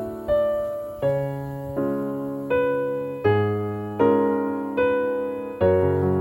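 Background piano music: slow chords struck about every three-quarters of a second, each one fading before the next.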